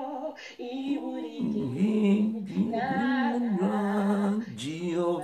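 A woman singing a slow worship chorus in long, held and sliding notes.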